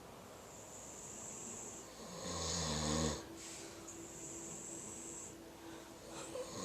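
Sleeping beagles snoring: breathy, hissing breaths alternate with a louder, low rattling snore about two to three seconds in. A faint steady tone hangs on after it, and another snore starts near the end.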